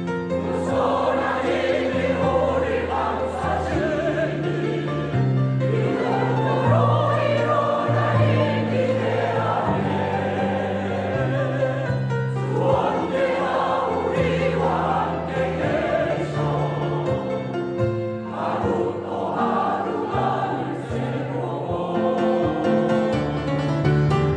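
Church choir singing a gospel hymn, with the low notes held under the melody.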